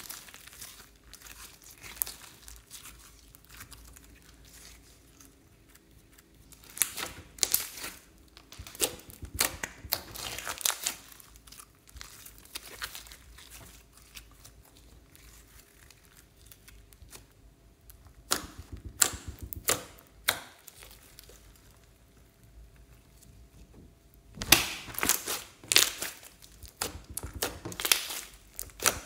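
Hands stretching, folding and squeezing slime, making sticky crackling and popping sounds. The crackling comes in three spells, with quieter squishing between them, and it is loudest near the end.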